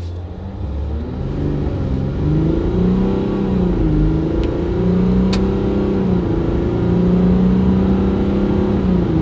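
Ram 1500 EcoDiesel's 3.0-litre V6 turbodiesel accelerating hard from a near standstill, heard inside the cab. The engine note climbs and then drops as the automatic transmission shifts up, about 4 s and 6 s in, with another shift at the very end.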